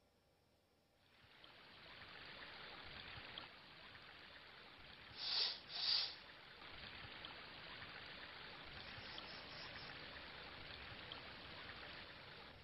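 Meat sizzling in a frying pan: a steady hiss with fine crackles that starts about a second in. Two short, loud, breathy bursts come about five and six seconds in.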